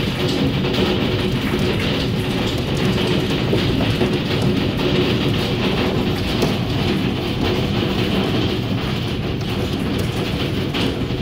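Hail pelting down in a dense, steady clatter of countless small impacts on hard surfaces.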